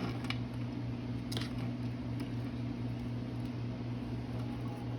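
A knife cutting through hot breaded chicken tenders on a board, with a couple of soft knocks and squishy cuts, over a steady low hum of a kitchen appliance.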